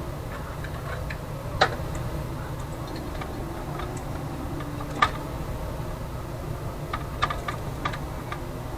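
A few irregular light clicks and taps over a steady low hum.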